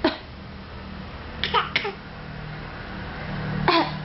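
A small child's fake coughs: short, forced little coughs, with three in quick succession about a second and a half in and two more near the end.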